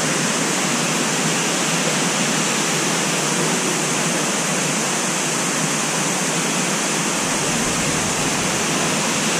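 Smith Falls waterfall pouring over a rock face into a shallow pool: a steady, even rush of falling water.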